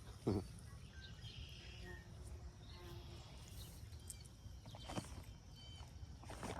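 Quiet outdoor ambience with faint, short bird calls and a single brief knock just after the start.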